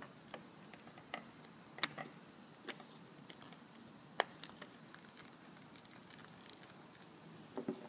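Faint, scattered small clicks and taps of hands handling a Rudy Project Magster sunglasses lens and pressing it into the frame, the sharpest clicks about two seconds and four seconds in.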